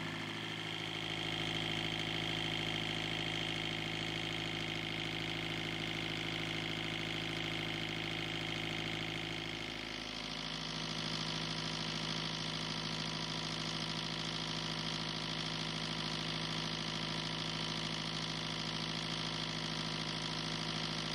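Kubota V2203 four-cylinder diesel engine idling steadily. About ten seconds in the sound dips briefly and then comes back brighter, heard near the open exhaust stack.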